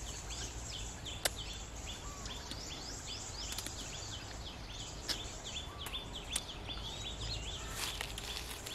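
Birds calling in the trees: a rapid, steady run of short high chirps, with a lower rising note repeating about every two seconds. A few sharp clicks come through as branches are handled.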